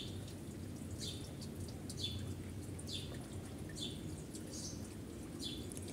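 Short high chirps repeating about once a second, each sliding down in pitch, over a low steady hum.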